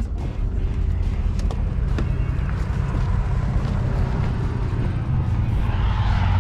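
Car engine and road noise: a steady low rumble with a few light knocks, and a rising sweep near the end.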